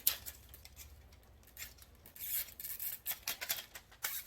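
Clicks, taps and rubbing of a plastic and metal grow light fixture being handled and fitted into its hanging clamp. There is one sharp click at the start, then a run of lighter clicks and scraping from about two seconds in.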